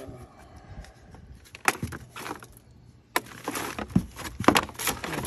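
Clicks and knocks of hard plastic parts and cables being handled, with rustling from about three seconds in.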